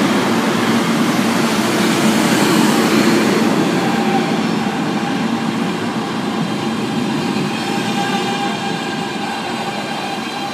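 R160 subway train arriving at a station platform: its running rumble fades as it slows. Steady whining tones come in about four seconds in.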